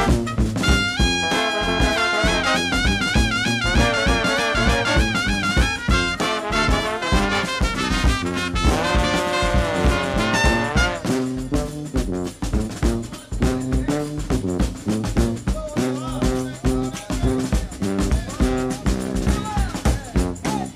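Background instrumental music with a steady beat: a melody with a wavering vibrato in the first half, and drums coming forward from about halfway through.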